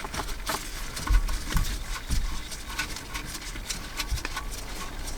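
Cables and plastic parts being handled behind a car dashboard: scattered clicks, rustles and knocks, with a few dull thumps.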